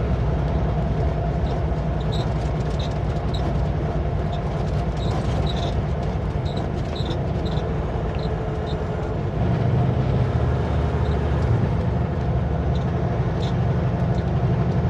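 Kenworth W900L semi truck's diesel engine and road noise while driving, a steady low drone that grows louder about nine seconds in, with faint light ticks over it.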